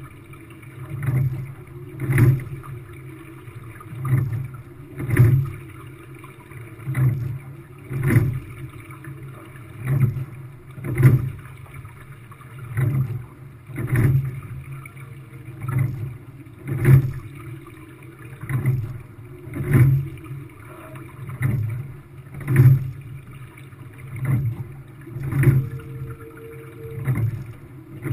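Quad sculling boat under way: the oars and oarlocks knock and splash in a steady stroke rhythm, a strong knock about every three seconds with a softer one between, over the rush of water along the hull.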